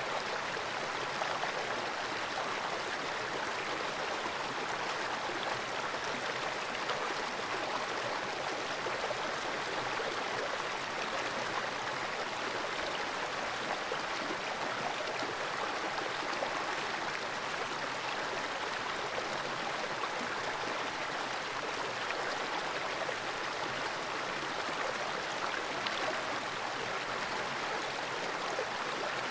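Fast-flowing creek water rushing steadily around a submerged camera.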